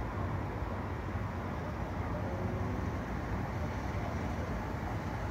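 Steady low rumble of distant road traffic, with no separate events standing out.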